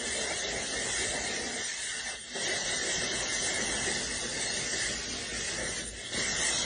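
Cologne being sprayed onto the neck and chest, a steady hiss of spray that runs almost without a break, thinning briefly about two seconds in and again about six seconds in.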